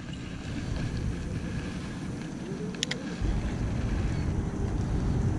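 Wind buffeting the microphone at the water's edge, a steady low rumble that grows stronger after about three seconds, with a few sharp clicks near the middle.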